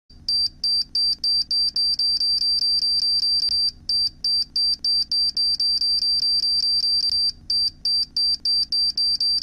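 Electronic beep sound effect: a short high-pitched beep repeating about four times a second, broken by two brief pauses, over a faint low hum.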